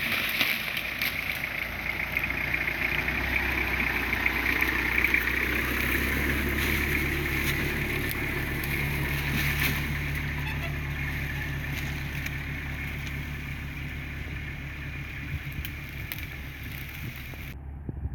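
Toyota Hilux pickup's engine running steadily at low revs as the truck crawls past, growing louder toward the middle and then slowly fading.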